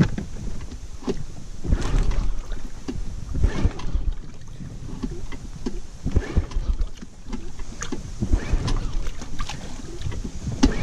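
Tohatsu 9.8 outboard motor being pull-started several times, the engine cranking without catching on its first cold start. A steady low buffeting of wind on the microphone runs under it.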